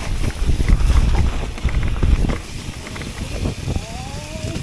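Electric mountain bike rolling fast over a leaf-covered forest trail: tyre rumble and rattling with wind buffeting the chest-mounted camera's microphone, heaviest in the first two seconds or so. Near the end a brief rising whine.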